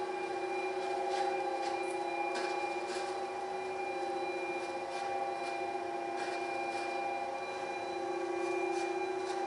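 Belt-driven industrial spiral dough mixer running steadily, its motors and drive giving an even hum with a few faint scattered clicks.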